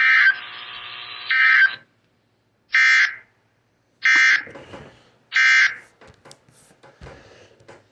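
Emergency Alert System end-of-message SAME data bursts: a string of short, harsh digital screeches about 1.3 seconds apart, five in all, the first two over a hiss. A few faint clicks follow.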